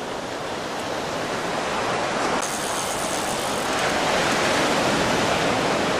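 Sea surf: a steady rushing wash of waves that slowly grows louder over the first few seconds.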